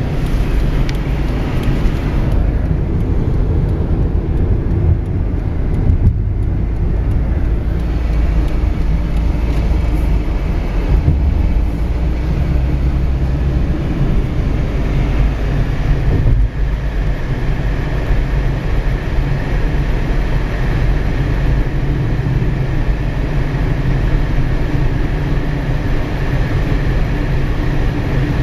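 Steady road noise inside a moving car's cabin: engine and tyre rumble heavy in the low end, with a brief dip about halfway through.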